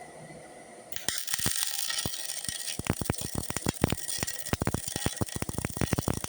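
Electric arc welding overhead: about a second in the arc strikes, and a steady hiss with irregular sharp crackles and pops follows.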